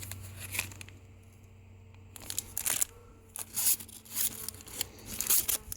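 Rubber stamp set packaging rustling and crinkling as it is handled, in irregular bursts that grow busier after about two seconds.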